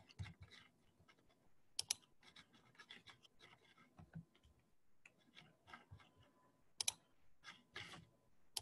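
Faint, irregular clicking and tapping of a computer keyboard and mouse, with a few sharper clicks standing out among the soft taps.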